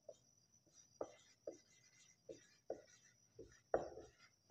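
Marker pen writing on a whiteboard: about seven short, faint strokes as a word is written, the loudest near the end.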